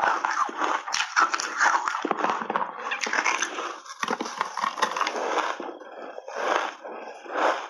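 Close-miked crunching and chewing of hard frozen ice chunks coated in milk powder, dense and continuous at first, then breaking into separate crunches about a second apart near the end.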